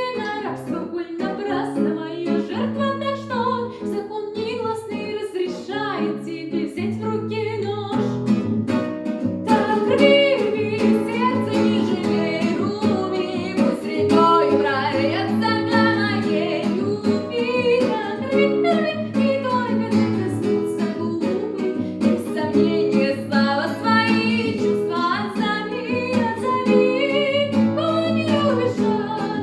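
A woman singing a pop song with guitar accompaniment.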